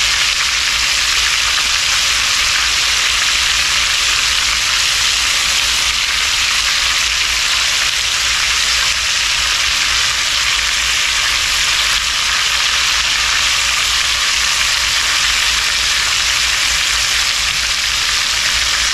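Breaded chicken pieces pan-frying in shallow shortening in a cast iron skillet: a steady, even sizzle.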